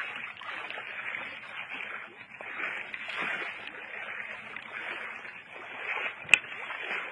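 Shallow river water splashing and lapping, irregular and continuous, with one sharp knock about six seconds in.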